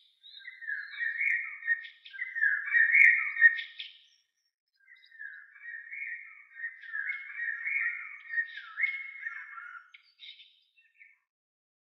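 Background music: a high, thin melody of held notes stepping up and down, breaking off about four seconds in, resuming, and fading out near the end.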